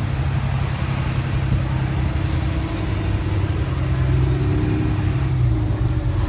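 Steady low engine rumble and road noise of a moving tour trolley, heard from on board.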